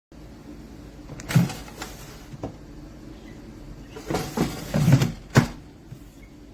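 Handling noises: a series of sharp knocks and short sliding scrapes, in two bunches about a second and a half in and again around four to five and a half seconds in, with the loudest knock near the end.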